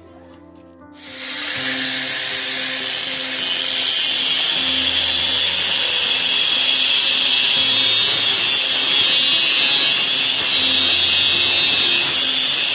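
Handheld angle grinder with a thin cut-off disc cutting into a steel plate: a loud, steady high-pitched grinding screech that starts about a second in and holds without a break.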